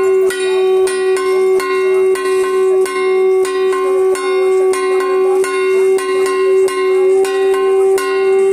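Bells rung in a steady rhythm, about two strokes a second, over a continuous ringing tone.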